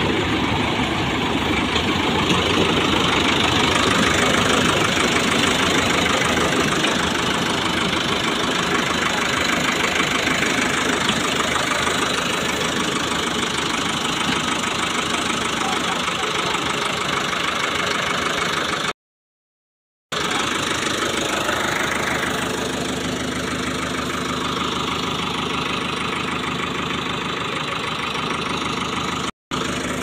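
Sonalika DI 60 tractor's diesel engine running steadily under load, driving a tractor-mounted Vikas mini combine harvester's belts, pulleys and threshing machinery as it harvests. The sound cuts out completely for about a second around two-thirds of the way in, and again very briefly near the end.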